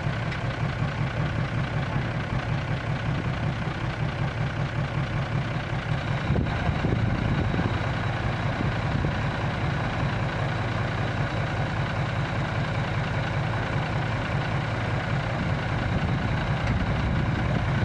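Old six-wheel dump truck's engine idling steadily with a fast, even pulse, its tipper bed raised after dumping. The note gets a little louder and heavier about six seconds in.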